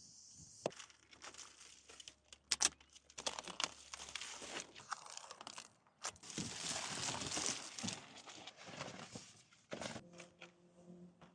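Packaging being handled and opened, with irregular rustling, crinkling and tearing and a string of sharp clicks and taps, then a longer rustle a few seconds in.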